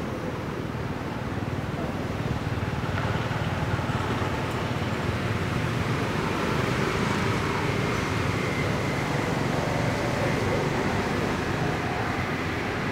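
Steady outdoor background noise, a low even rumble with faint higher wavering tones over it.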